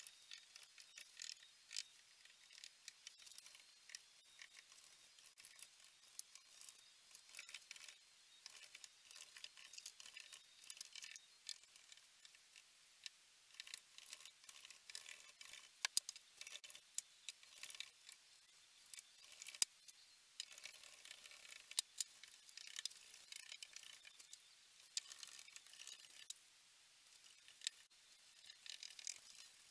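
Faint scratchy brushing of a paintbrush working paint over a wooden baseboard, with scattered light clicks and taps throughout.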